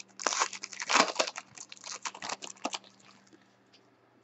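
Foil wrapper of a trading-card pack being torn open and crinkled by hand, a dense crinkling for about three seconds that then dies down to a few faint ticks of cards being handled.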